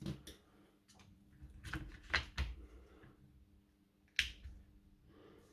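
Light clicks and knocks of small parts being handled and seated in the opened gear housing of a DeWalt DCH273 SDS rotary hammer: a sharp click at the start, a cluster of clicks about two seconds in, and one more sharp click about four seconds in.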